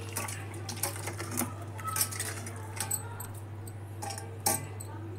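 Hand washing and squeezing seedless tamarind in water in a steel bowl: a few irregular light metallic clinks against the bowl with small wet sounds, over a steady low hum.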